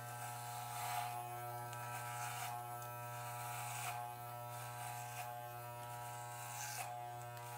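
Corded Wahl electric hair clippers buzzing steadily while cutting the hair at the back of the head.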